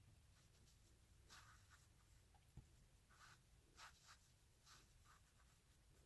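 Near silence with a few faint, soft swishes of a makeup brush blending contour along the jawline, and one small click about two and a half seconds in.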